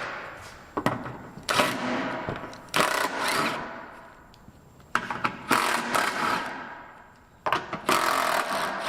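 Handheld power tool running in several short bursts, backing out the 12mm bolts that hold a car's underbody splash shield.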